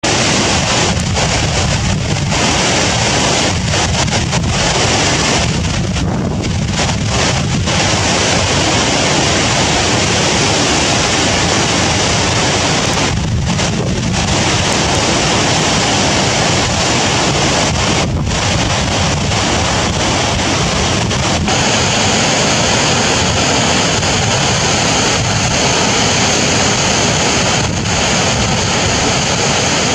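Loud, steady rush of floodwater spilling over a curved concrete dam spillway and cascading down its stepped side channel into a churning basin: the reservoir is overflowing.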